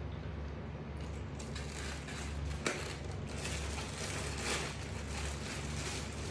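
A pet macaque chewing pumpkin, with moist crackling and crunching and scattered sharp clicks that thicken from about a second and a half in. A steady low hum runs underneath.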